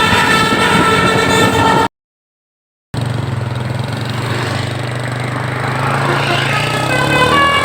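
Indonesian 'telolet basuri' musical bus horn playing a tune of several notes, cut off abruptly about two seconds in. After a second of silence, a bus engine runs with a low steady hum, and the horn's notes start again near the end.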